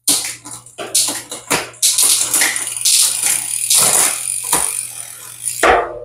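Mountain bike drivetrain turned by hand on a repair stand: the chain runs over the 12-speed cassette and through the rear derailleur's replacement cage with a fast clicking, rattling whir as the rear wheel spins. The clicking stops abruptly near the end.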